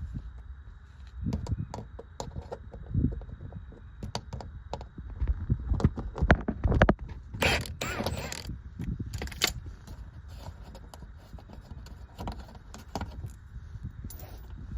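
Hand ratchet with a universal-joint socket clicking as bolts are worked loose, with clinks and knocks of metal tools. A louder spell of clattering comes about halfway through.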